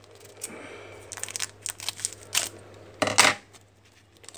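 Trading cards being flipped through by hand, sliding and snapping against one another in a series of short sharp clicks, the loudest about three seconds in, with a soft rustle of card stock between them.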